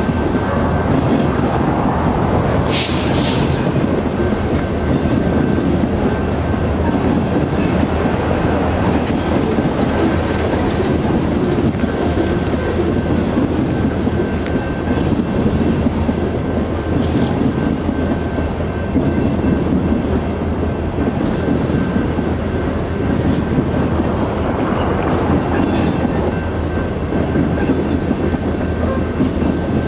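Coal train's gondola cars rolling past steadily: a continuous rumble with wheels clattering over the rail joints. A faint steady high-pitched ring runs through it, and there is a brief sharp squeal about three seconds in.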